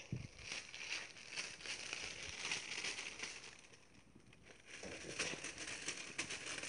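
Thin plastic bag crinkling and rustling as it is handled close up, in two stretches with a short lull in the middle. A brief low bump at the very start.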